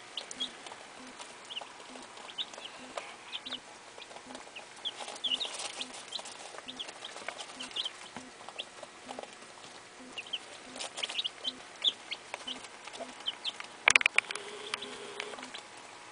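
A brood of about a dozen newly hatched Barred Rock and Rhode Island Red chicks peeping, with many short high chirps scattered throughout. Near the end comes a single sharp knock, the loudest sound.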